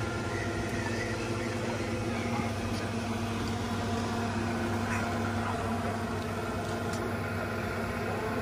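A motor running steadily: a constant low hum with several unchanging tones above it, no rise or fall in pitch.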